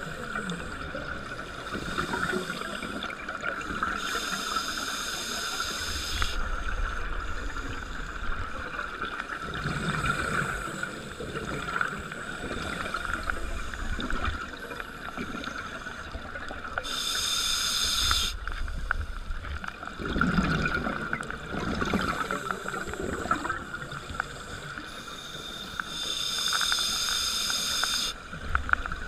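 Underwater ambience heard through a diver's camera: a steady hiss and low rumble, with three louder bubbling bursts of scuba regulator exhaust, each a second or two long, the last near the end.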